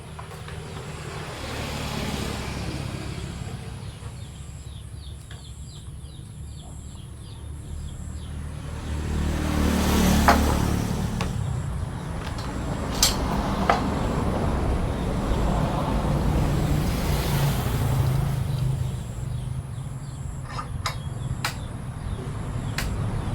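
Motor vehicles passing by: a rumbling noise swells and fades three times. A few sharp knocks come in the second half, and faint bird chirps come early.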